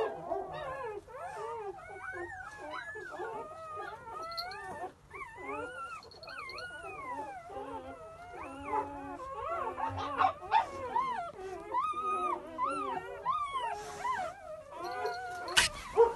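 Newborn English Pointer puppies crying and squealing: many high, thin calls overlapping, each rising and falling in pitch. A sharp knock sounds near the end.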